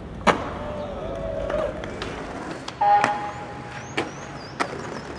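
Skateboard sounds on concrete: a sharp clack of the board landing a trick, with wheels rolling over hard ground. Several more board pops and clacks follow later on. A short pitched call or shout comes in the first half.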